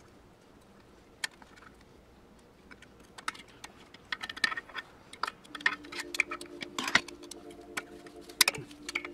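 Sparse, then frequent small metallic clicks and clinks as a fiddly spring is worked into place inside a 4L60E transmission case. The clicks are few at first and come thick from about three seconds in. A few steady low tones join a little past halfway.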